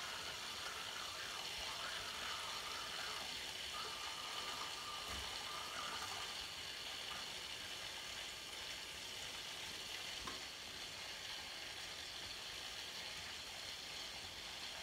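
Custom PC water-cooling loop running, a steady faint hiss and gurgle of water and trapped air circulating through the pump-reservoir and tubing: air still in the loop that has yet to bleed out. A couple of faint knocks from handling.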